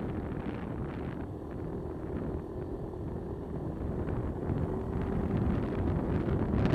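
Wind buffeting a helmet-mounted microphone over a motorcycle engine running steadily on the move; the rush grows louder near the end.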